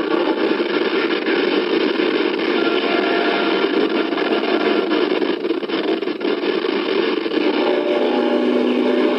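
A steady, loud droning rumble-like noise with a few faint held tones running through it, without any break or sudden event.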